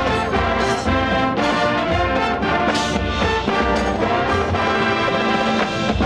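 High school marching band playing: sustained brass chords with the drumline's sharp hits cutting through several times.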